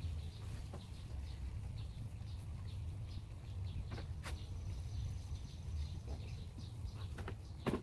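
Birds chirping over and over in the background over a steady low rumble. A few sharp knocks come from a folding table and beekeeping gear being handled and set down, the loudest near the end.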